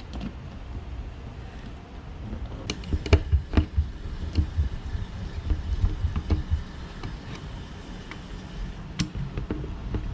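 Scattered clicks and knocks of a garage door opener's belt and rail parts being handled and hooked together, with a cluster of sharper knocks about three seconds in and another near the end, over a low rumble.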